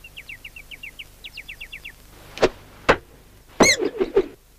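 Cartoon sound effects: a quick run of faint high chirps, then two sharp knocks about half a second apart, then a brief high squeal with a clatter of smaller knocks.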